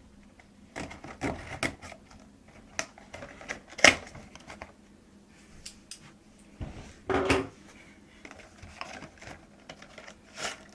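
Scattered clicks and rustles of a knife cutting the seal on a CPU's retail box and the box being opened, with a sharp click about four seconds in and a louder rustle about seven seconds in.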